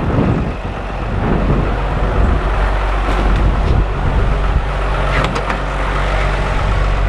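A motor running steadily with a low hum, with a few short clicks about three and five seconds in.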